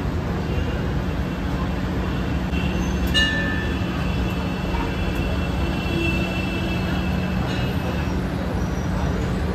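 A steady low rumble. A sharp click about three seconds in is followed by a thin, high metallic squeal lasting several seconds.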